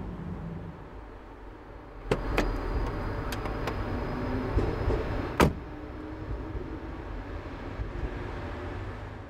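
A car door unlatching with a click about two seconds in, a few knocks as someone climbs out, then the door shutting with a sharp bang about five and a half seconds in, over a low steady rumble.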